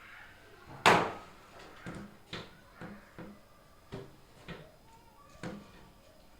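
A sharp knock about a second in, then a string of lighter clicks and knocks: fridge parts and food containers being handled and set in place.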